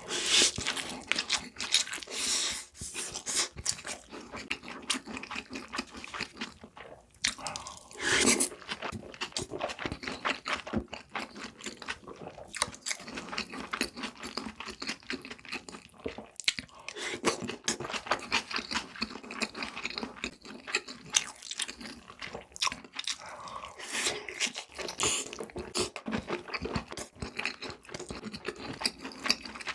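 Close-up eating sounds: crisp crunching and chewing of crunchy food, with louder bursts of crunching every several seconds as new bites are taken.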